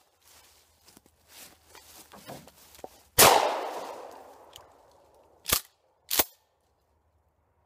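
A Remington 870 12-gauge pump shotgun fires once, about three seconds in, its report echoing and dying away over a couple of seconds. About two seconds later come two short, sharp clacks less than a second apart, the pump action being racked back and forward.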